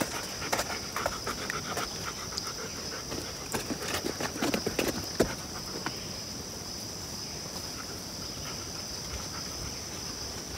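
A steady, high-pitched insect chorus at the pond. For the first five seconds or so, soft irregular rustles, clicks and snuffling breaths come from the Vizsla standing over the floating reeds, then they stop.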